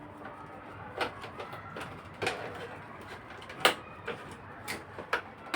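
A handful of separate sharp clicks and knocks at irregular intervals over a low background hiss, the loudest about two-thirds of the way in.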